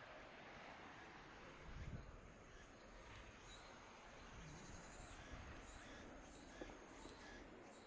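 Faint outdoor ambience with quiet, high-pitched insect chirps recurring about twice a second, and a brief low bump about two seconds in.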